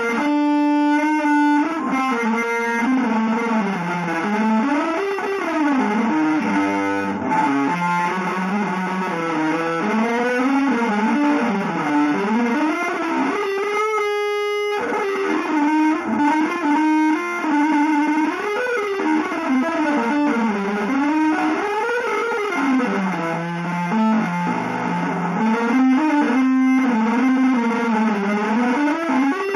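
Electric guitar played through effects with some distortion: an atonal, free-improvised line that is held and glides continuously up and down in pitch, broken twice, near the start and about halfway through, by short steady stacked tones.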